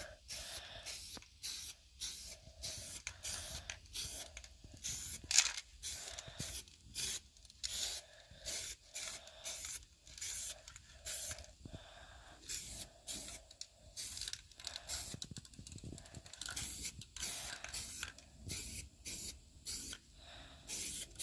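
Aerosol spray can of rust-protection primer hissing in a long series of short bursts, roughly one or two a second, dusting a thin first coat onto a steel wheel rim.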